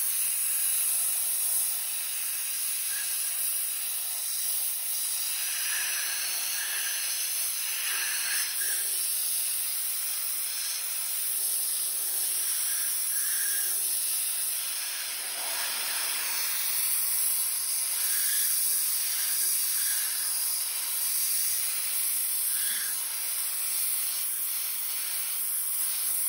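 Sandblaster gun blasting sand against a steel chassis frame: a steady, continuous hiss of compressed air and abrasive that strips rust and old coating down to bare metal.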